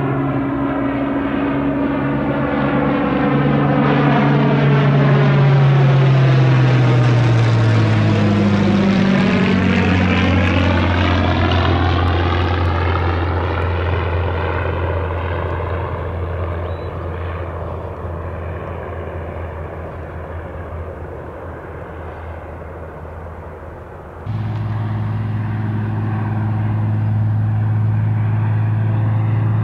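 Hawker Hurricane Mk.I's Rolls-Royce Merlin III V12 engine and propeller in flight, passing by with the engine note dropping in pitch about nine seconds in, then fading as the aircraft draws away. About 24 seconds in the sound cuts suddenly to a louder, steady engine note as the aircraft comes in on approach with its undercarriage down.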